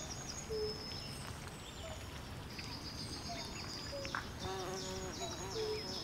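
Swamp ambience of insects and birds calling: repeated high chirps, short low notes here and there, and a longer low call with several pitches about halfway through, over a steady low rumble.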